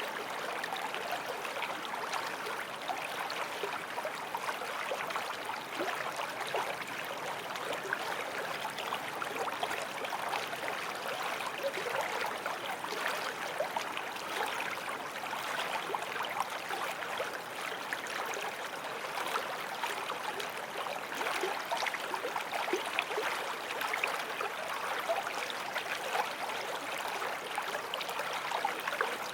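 Creek running steadily, a continuous splashing and trickling of water over stones.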